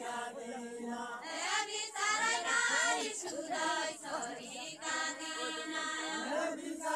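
A group of villagers singing a Deuda folk song together, several voices in phrases of long held notes.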